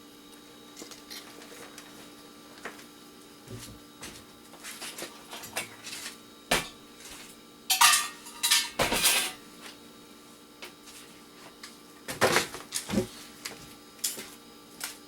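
Scattered knocks and clicks of scrap electronic parts being handled and set down, with two short bursts of rattling clatter, one about halfway through and another near the end.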